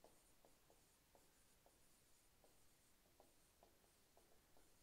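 Near silence, with faint, irregular little taps and scratches of a pen writing on a board, about two a second.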